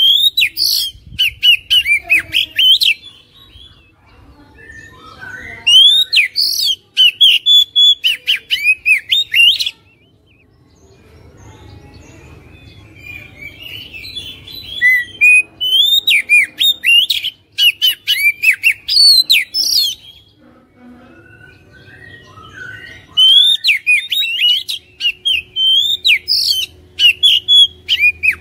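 Male oriental magpie-robin singing in four loud bouts of rapid whistled phrases mixed with sharp clicking notes, separated by pauses of a few seconds.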